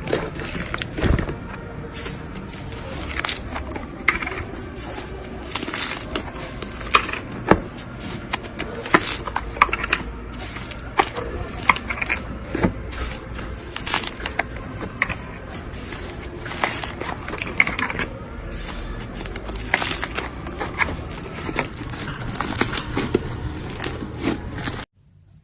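Slime being squeezed and poked, with irregular crackling and popping clicks. The sound cuts off suddenly near the end.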